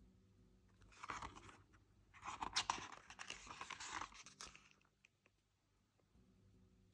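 Thin paper photobook pages being turned and handled: a short rustle about a second in, then a longer crinkling rustle, both faint.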